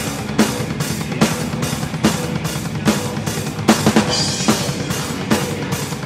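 Metal band playing live: electric guitars over a drum kit, with evenly spaced drum hits about two and a half times a second.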